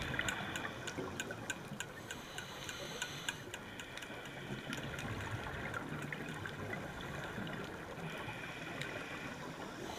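Underwater ambience on a coral reef dive: a steady hiss with bubbling and sharp clicks. The clicks come evenly, about three a second, at first and are sparser after about a second in.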